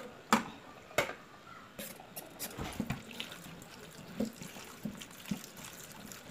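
Kitchen tap running into a stainless steel sink while chopped bitter melon is rinsed by hand in a metal bowl, with small splashes and clicks. Two sharp clinks of dishes come in the first second.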